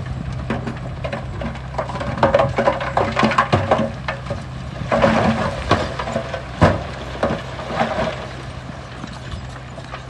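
Construction machine's diesel engine running steadily with irregular metallic clanks and knocks over it, one sharp knock about two-thirds of the way through; the clatter dies down toward the end.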